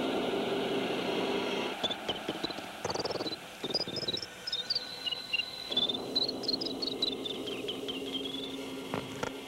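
Electronic soundtrack: a low hum and a steady high tone, then from about two seconds in a rapid run of short, high bleeps hopping up and down in pitch until near the end.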